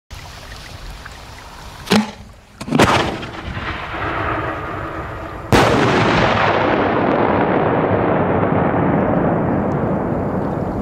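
Two loud firework bangs about a second apart, the second louder and ringing on; these are big firecrackers or shells going off. About five and a half seconds in, a loud, steady rushing noise starts suddenly.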